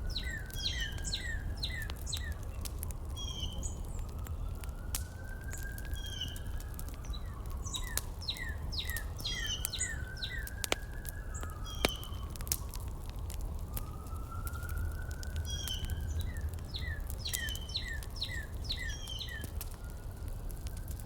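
Birds chirping in quick runs of short, falling notes, with a slow whistling tone that rises and falls every few seconds. Scattered crackling clicks and a steady low rumble sit underneath.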